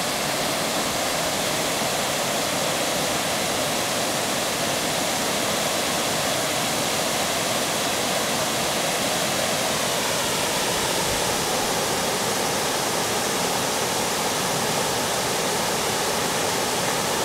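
Water pouring over an old mill dam's spillway: a steady, even rush of falling water.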